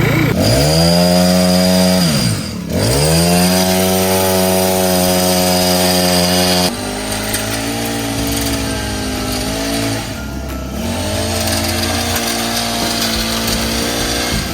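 Small petrol engine of a hedge trimmer running after a pull start. It revs up at the start, drops and picks up again after about two seconds, then settles to a lower, steady run after about seven seconds.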